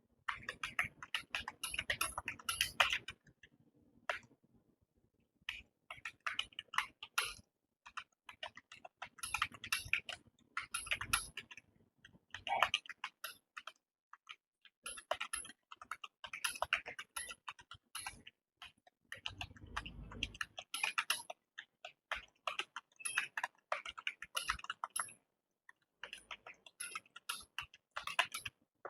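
Fast typing on a computer keyboard: rapid runs of key clicks in bursts of a few seconds, with brief pauses between them.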